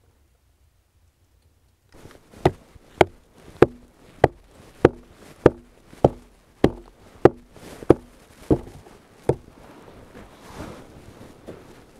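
Hatchet striking the wood of a log wall: about a dozen even blows, roughly one every half second to just over, starting about two seconds in, each with a short wooden ring. Faint rustling follows the last blow.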